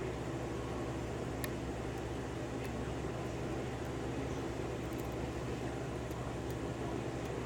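Steady low mechanical hum and hiss of a running motor, with a couple of faint small clicks from a lock pick working the pins of a small padlock.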